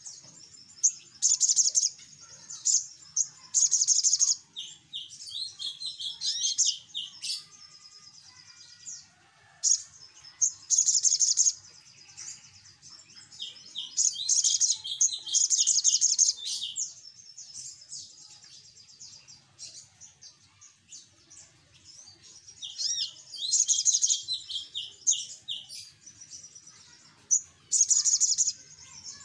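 Sunbird (sogok ontong) singing: bursts of fast, very high-pitched chirps and trills come every few seconds, with softer twittering in between.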